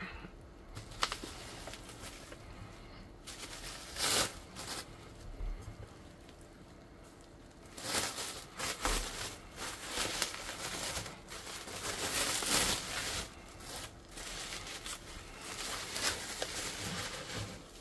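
Plastic packaging film crinkling and rustling as hands pull and tear clear wrap off a bubble-wrapped parcel, in irregular bursts. The handling is sparse at first, pauses briefly, then runs almost continuously through the second half.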